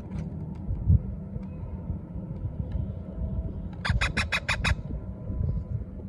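Ringneck parakeet chicks giving a quick burst of about six harsh squawks about four seconds in, over a low steady rumble.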